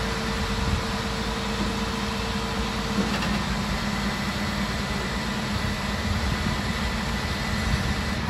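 Flatbed truck's engine running steadily to power its Fassi knuckle-boom crane as the crane swings a load. A steady mid-pitched tone in the rumble cuts off about three seconds in.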